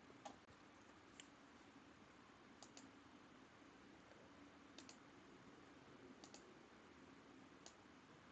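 Near silence: faint room tone with a few sparse, faint clicks, some in quick pairs.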